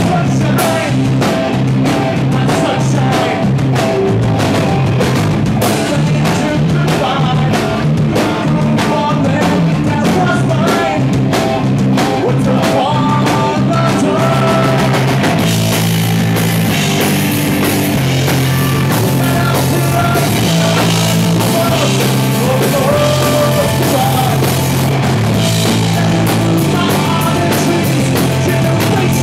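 Live rock band playing loud, an electric guitar strummed over a drum kit, with a singer's voice at times. About halfway through, the drums open up into a steady wash of cymbals.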